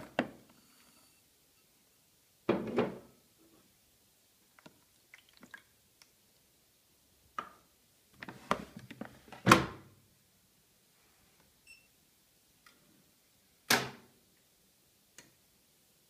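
Scattered plastic knocks and thunks from handling a Siemens iQ700 washing machine's detergent drawer while washing powder is loaded, the two loudest about halfway through and near the end, with a faint short beep in between.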